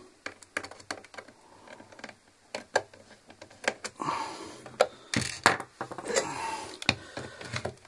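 A small screwdriver prying at the plastic latches of an Aurora AU-347 coffee grinder's housing: scattered clicks, taps and metal-on-plastic scraping, busiest in the second half as the grinder is handled and turned over.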